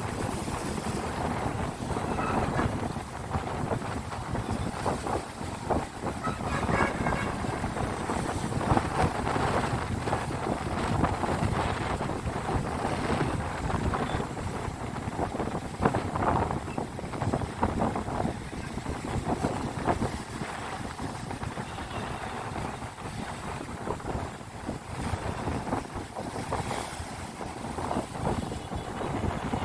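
Sea waves washing in and surging, with wind buffeting the microphone.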